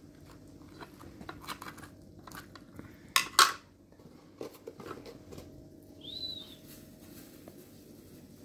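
Long metal skewer being worked through a whole raw chicken on a plate: light clicks and scrapes, with two sharp knocks of metal on the plate a little after three seconds in.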